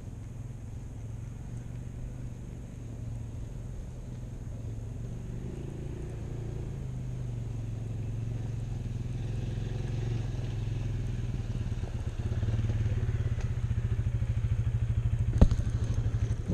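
A motor vehicle's engine running at low revs, growing steadily louder, with a fast, even pulsing in the last few seconds. A sharp click comes about a second before the engine stops abruptly at the end.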